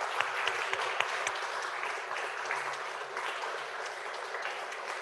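A congregation applauding: many hands clapping together, easing slightly after the first couple of seconds.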